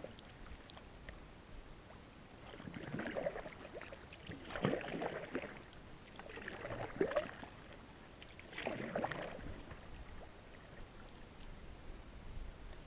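Canoe paddle strokes in lake water: four swishing strokes about two seconds apart, starting a couple of seconds in.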